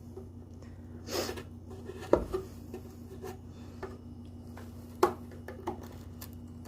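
Hand tools being handled at a workbench: a brief scrape about a second in, then a few sharp knocks and clicks, the loudest just after two seconds, over a steady low hum.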